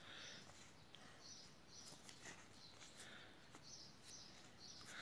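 Near silence: quiet room tone, with faint, soft high-pitched sounds now and then.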